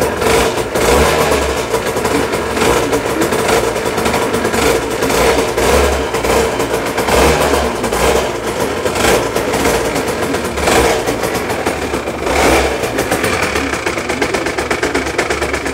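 Aprilia RS 125's single-cylinder two-stroke engine running and being blipped, revving up repeatedly every second or two before settling steadier near the end.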